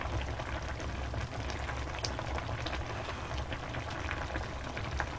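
Budae jjigae (Korean army stew) bubbling at a steady boil in a wide pot over a burner, a continuous bubbling with small pops and ticks throughout.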